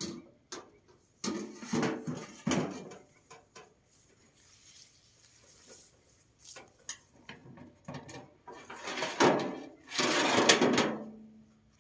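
A wheelbarrow being pushed over rough garden ground and a long-handled shovel lifted out of its metal tray: a few clattering knocks in the first few seconds, scattered small knocks, then a longer scraping clank about nine seconds in that rings briefly as it fades.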